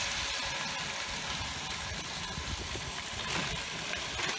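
Raw shad fillets sizzling steadily in hot oil in a frying pan, just after going in, over a low rumble.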